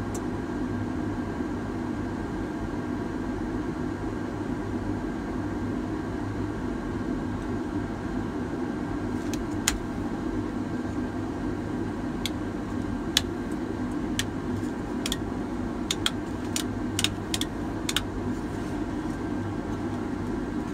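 Caterpillar backhoe loader's diesel engine idling steadily, heard from inside the cab. From about halfway through, a scattering of sharp, irregular clicks sounds over the drone.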